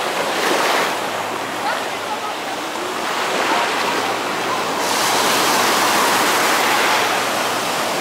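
Sea surf: small waves breaking and washing over the shallows at the shoreline, a steady rush that swells briefly near the start and more loudly for a couple of seconds from about five seconds in.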